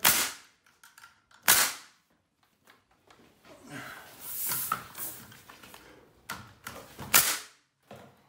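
Nail gun firing into 2x4 framing lumber: a few sharp shots spaced irregularly, the loudest about seven seconds in.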